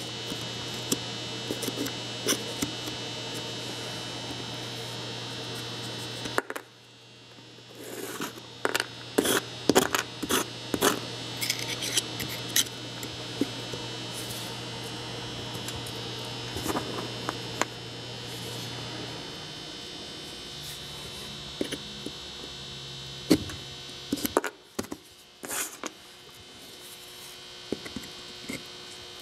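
A steady low hum with scattered small clicks and taps of metal parts being handled: the worn vanes are being pried out of a pneumatic sander's motor rotor and set down on cardboard. The hum drops out briefly twice.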